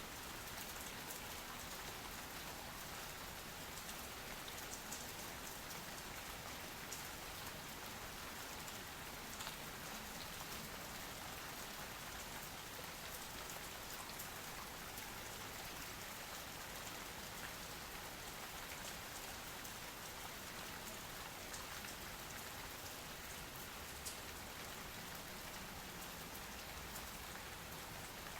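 Steady rain falling, with a few individual drops ticking sharply now and then.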